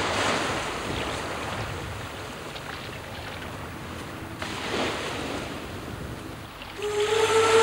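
Ocean surf washing onto a shore, swelling twice and falling back. Background music comes in near the end with a held note.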